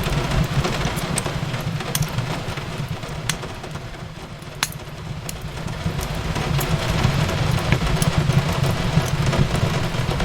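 Wood fire crackling, with scattered sharp pops over a steady low rumble, mixed with the even hiss of rain on a window.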